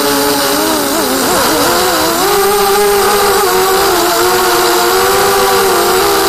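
Racing quadcopter's electric motors and propellers whining, the pitch wavering quickly up and down about a second in as the throttle changes, then holding steadier.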